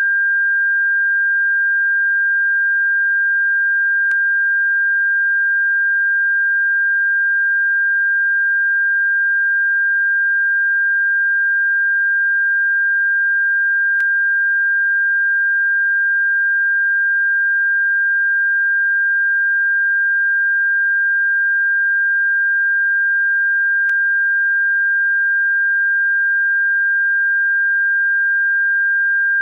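Electronic bird-repellent tone: a single steady, unwavering pure tone, with a faint click about every ten seconds.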